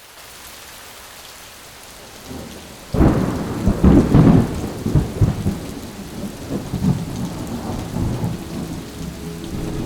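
Steady rain with a loud thunderclap about three seconds in that rolls on as a long, deep rumble and slowly dies away.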